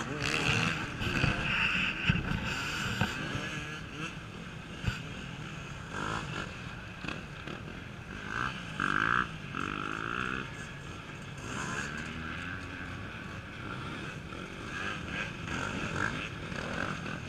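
Off-road cross-country motorcycles running and revving on a log section, their engine pitch rising and falling as the throttle opens and closes.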